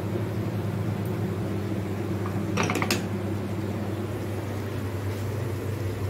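Steady low machine hum, with a brief clatter of clicks from kitchenware being handled a little under halfway through.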